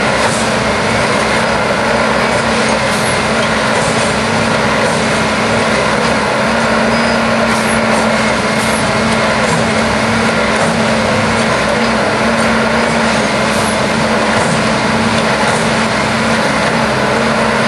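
Ballast tamping machine running loudly and steadily on the track, its engine and hydraulics giving a constant drone with a steady hum.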